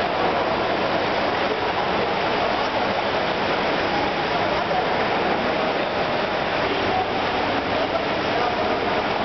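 Steady rushing water noise of an indoor swimming pool, with a murmur of voices echoing in the hall.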